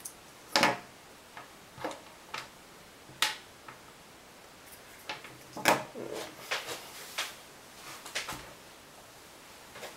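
Irregular small clicks and light knocks, about ten of them, the loudest a little after the start and just before six seconds in: handling noise of test leads and components on the bench during a capacitance measurement.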